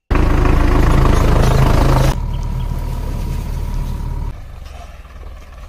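Tractor diesel engine running loudly and steadily. The level drops abruptly about two seconds in and again about four seconds in.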